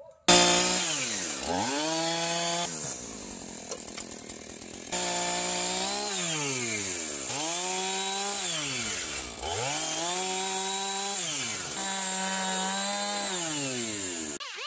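Gasoline chainsaw cutting a timber beam. It starts abruptly just after the opening, and its engine revs up to full speed and drops back about five times.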